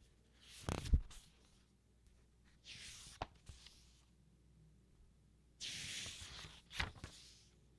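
Paper pages of a book being turned by hand: three separate rustling page turns, about half a second in, near three seconds in and near six seconds in, the first and last ending with a soft thump.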